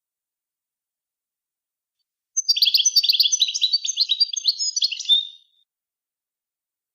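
A songbird sings one rapid, twittering song phrase of about three seconds, beginning a couple of seconds in and cutting off abruptly. It is a recorded tutoring phrase of the kind played to teach young cage birds a song style.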